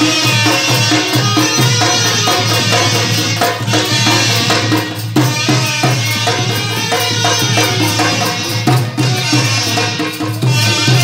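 Traditional Indian folk music with drums keeping a busy rhythm, amplified over a PA system.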